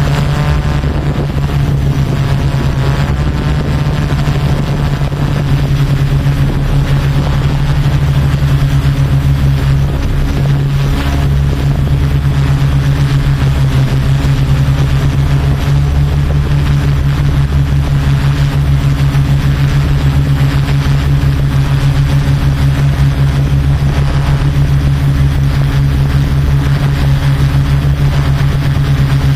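Yuneec Typhoon Q500 4K quadcopter's electric motors and propellers running in flight, a loud, steady, even hum.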